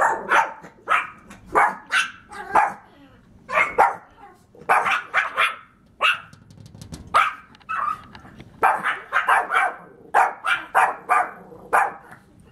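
Dogs barking in quick runs of sharp barks, several a second, with short pauses between runs, at a cat on the other side of a glass door.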